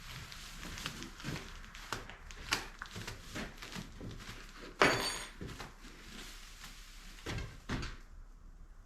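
Scattered knocks and clunks of objects being handled and set down, with one loud sharp clank that rings briefly about five seconds in.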